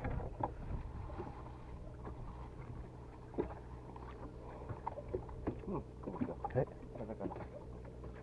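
Small fishing boat's engine idling with a steady low hum, under faint voices and a few small knocks on board.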